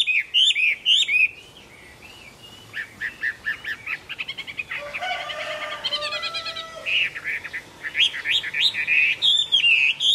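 Chinese hwamei singing: loud repeated ringing whistles break off about a second in, give way to a softer run of quick varied notes, and return loud near the end.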